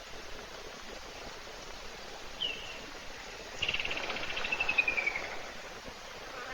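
A wild animal call over a steady background hiss of insects: a short high chirp, then about a second later a rapid, high trill that falls in pitch over about a second and a half.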